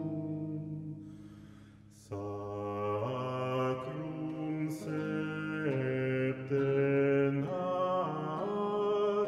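Background music: a male vocal ensemble singing slow, sustained chords. A chord dies away about two seconds in, and the next phrase enters, with held notes shifting from chord to chord.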